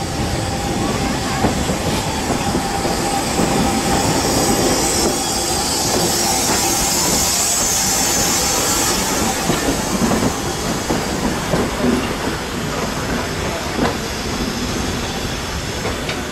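Ty42 steam locomotive rolling slowly past at close range. Its steam hiss is loudest about halfway through as the driving wheels go by. A thin steady wheel squeal runs under it, with a few sharp clacks from the wheels later on.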